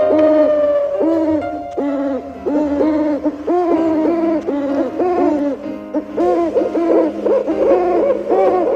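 Owl hooting: a long series of short, arched hoots, about two a second, coming quicker in the second half, over a steady low hum.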